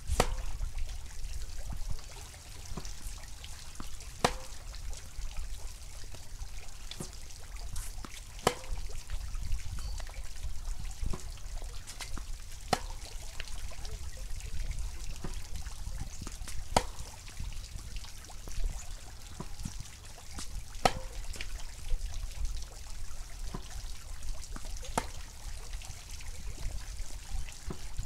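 Tennis ball struck by a Yonex VCORE Tour G racket on groundstrokes, a sharp pock about every four seconds, seven times, with fainter knocks of the ball bouncing and being hit across the court between them. Under it runs a steady low rumble and hiss.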